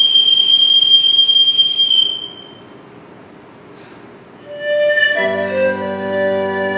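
Pan flute holding a long, high, breathy note that fades out about two seconds in. After a short pause the music resumes: new notes at about four and a half seconds, then the pipe organ comes in with a full chord and deep bass about five seconds in.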